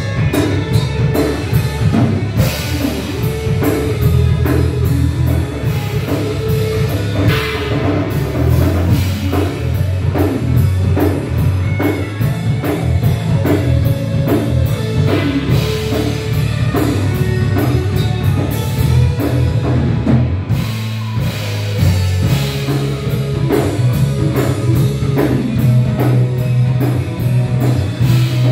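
Live rock band playing without vocals: electric guitar, drum kit and keyboard over a steady beat, heard through a phone's microphone in the studio. The bass and drums drop out briefly about two-thirds of the way through.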